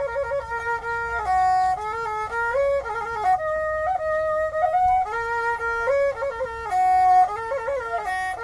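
Khmer tro sor, a two-stringed bowed fiddle, playing a solo melody: one line of held notes that step up and down, with quick turns and slides between them.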